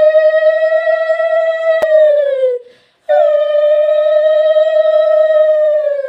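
A dog howling: two long, steady howls of about three seconds each, each dropping in pitch as it ends, with one sharp click about two seconds in.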